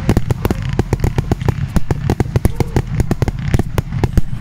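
Fireworks going off: a rapid, irregular run of sharp cracks and bangs, about seven or eight a second, over a low rumble.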